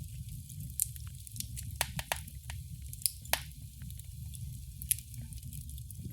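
Wood fire burning in a fireplace: a steady low rumble and hiss of the flames with irregular sharp crackles and pops, the loudest pop about three seconds in.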